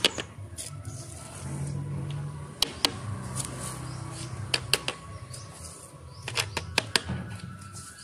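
Small plastic hand rake digging in loose potting soil in a plastic pot, giving sharp clicks and scrapes, several in quick pairs, over a low background hum.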